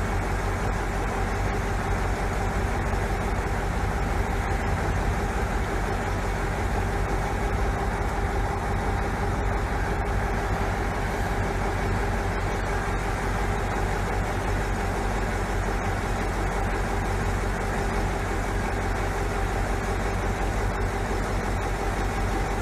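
Heavy truck engine running steadily at an unchanging pitch, a constant drone with no revving.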